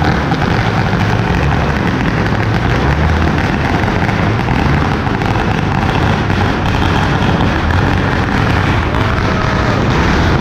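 Firecrackers going off in a dense, continuous crackle of rapid bangs, steady and loud throughout.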